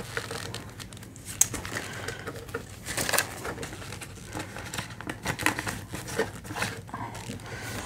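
Australian polymer banknotes and a clear plastic binder pocket crinkling and rustling as they are handled, with irregular short crackles throughout.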